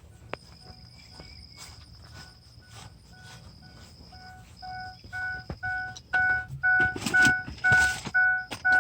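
Ford diesel pickup's warning chime beeping repeatedly, about two and a half beeps a second, faint at first and much louder from about five seconds in. Rustling and knocks near the end as someone moves about at the truck.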